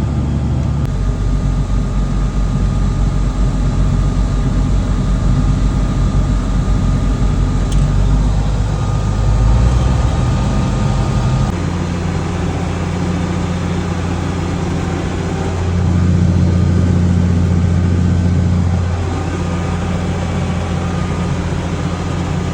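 International Harvester 1086 tractor's turbocharged six-cylinder diesel running steadily under the load of a round baler making twine-tied bales. Its engine note shifts about a second in and again about halfway through, and runs louder for a few seconds after that.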